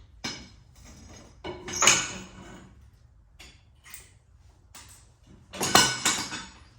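Metal clanks and knocks as the lift arms of a compact tractor's three-point hitch are worked off their pins. A few light knocks throughout, with a loud clank about two seconds in and a burst of louder clanking near the end.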